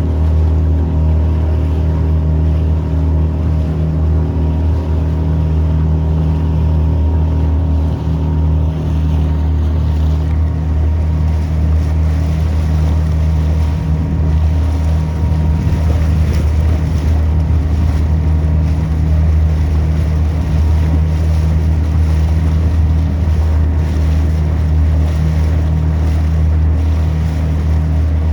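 Motorboat engine running at a steady speed underway, its low drone unchanging, with wind and water rushing past.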